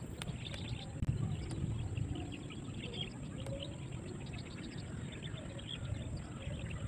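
Outdoor river ambience: a low, steady rumble with many short, high chirps and ticks scattered throughout.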